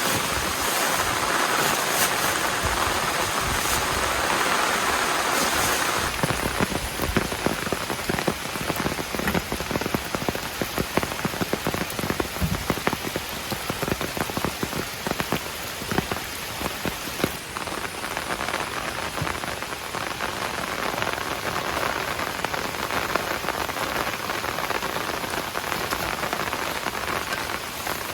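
Heavy rain. For the first six seconds or so there is an even rush of water, then the sound changes suddenly to many sharp, irregular drop impacts striking a surface close to the microphone.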